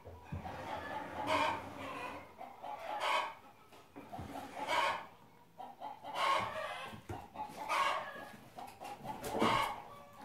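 A chicken clucking, one repeated call about every second and a half.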